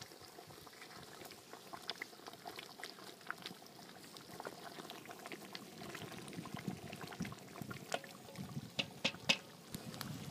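Thick vegetable mixture of eggplant and peppers simmering in a cauldron and stirred with a wooden spoon: wet bubbling and sloshing with many small scattered pops and clicks. A few sharper clicks come close together near the end.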